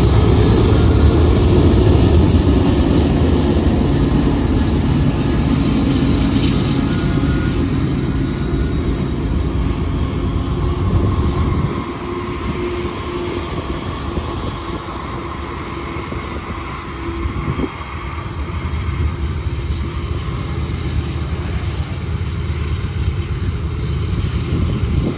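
GE diesel-electric locomotive engine running hard at full throttle under a load test. The sound is loud and deep, drops noticeably about twelve seconds in, then builds again.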